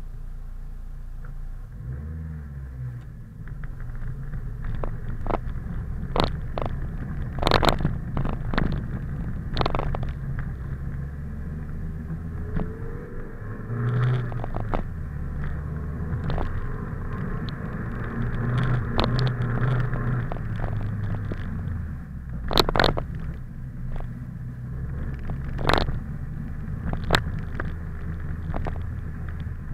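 Car engine running, its pitch rising at times as it is revved, with scattered sharp knocks and clicks.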